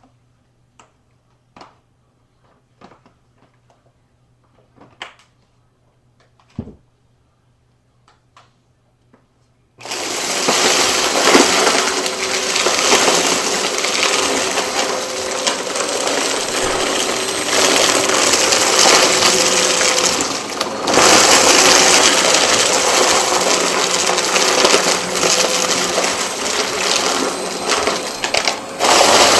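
A few light clicks and knocks, then about ten seconds in a vacuum cleaner switches on and runs loudly and steadily, briefly dipping twice.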